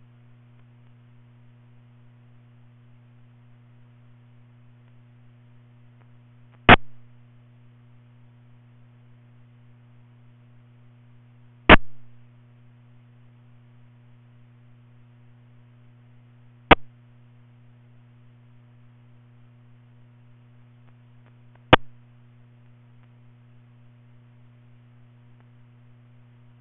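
Steady low electrical hum, like mains hum, with four sharp clicks at even intervals of about five seconds.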